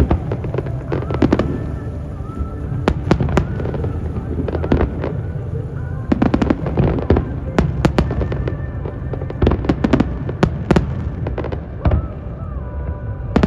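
Fireworks display: shells bursting in a rapid, irregular series of bangs that come in clusters, over a steady low rumble.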